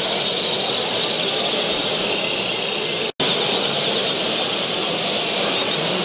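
Dense chorus of many caged canaries singing and chirping at once over a steady hall hubbub. The sound drops out for an instant about three seconds in.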